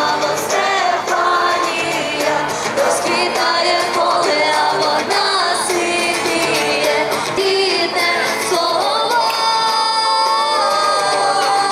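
Music with singing voices, a sung melody over sustained accompaniment.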